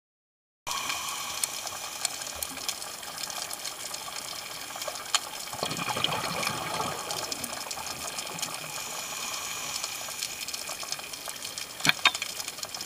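Underwater reef sound heard through a dive camera: a steady hiss with scattered crackling, a swell of a diver's exhaled regulator bubbles about six seconds in, and two sharp clicks near the end.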